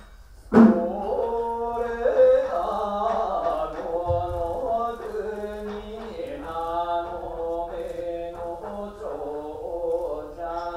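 Unaccompanied male chanting of a kagura song, in long held notes that bend and shift in pitch, starting sharply about half a second in.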